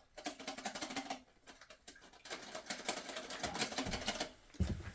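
Rapid small clicks and rattles of plastic toilet fill valve parts being handled, in two stretches with a short quiet gap between.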